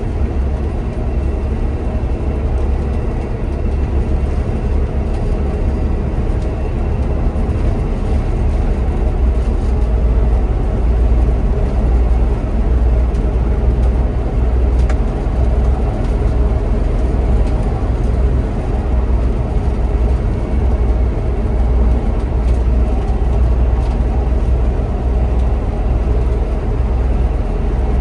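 Cab noise of a Scania Citywide city bus driving at motorway speed: a steady low rumble with road noise that goes on without a break.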